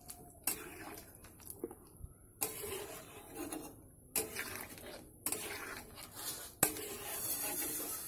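A spatula stirring papaya and potato pieces in a pan of simmering thin curry, with bubbling liquid and light knocks of the spatula against the pan. The sound comes in short stretches that start and stop abruptly.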